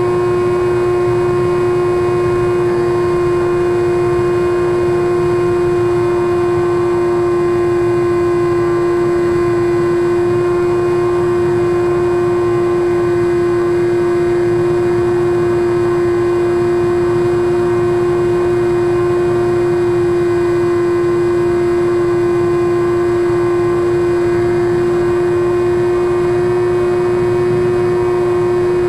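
The electric motor and three-blade 9x6 propeller of a SkyWalker FPV plane (Turnigy Aerodrive SK3 35/36 1400kv brushless) running at steady throttle in flight. It makes a constant, unchanging whine over a rush of air, picked up by the camera mounted on the plane.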